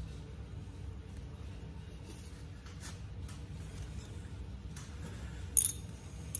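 Light clicks and scrapes of hand-work on an engine thermostat housing as its bypass port is plugged, with one sharp clack about five and a half seconds in and a smaller one just after, over a steady low hum.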